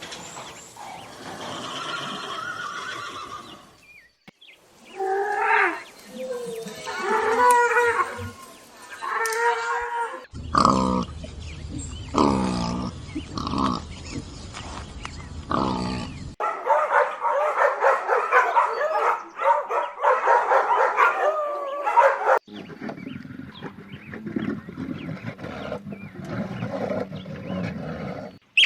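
A series of different animal calls, edited together as about five separate clips that change abruptly every five or six seconds. The middle clip holds deep, drawn-out calls.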